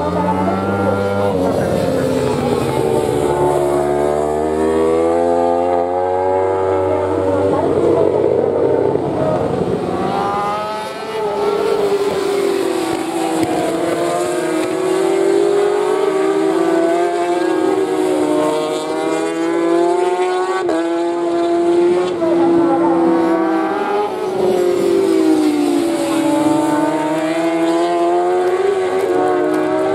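Racing superbikes' 1000 cc inline-four engines as the bikes brake, downshift and accelerate through a corner. Several engines sound at once, their pitch rising and falling with no break.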